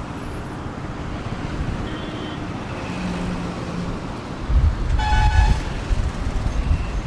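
Heavy road traffic running steadily: engines and road noise. A vehicle horn honks once for about half a second just past the midpoint, and a short higher beep sounds about two seconds in.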